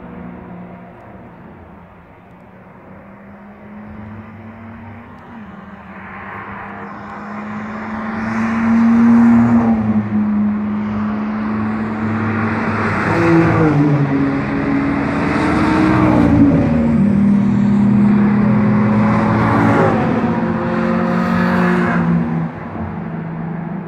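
Several cars driven hard down a long straight, engines at high revs, growing from a faint distant hum to loud close passes. Overlapping engine notes drop in pitch several times as cars go by one after another.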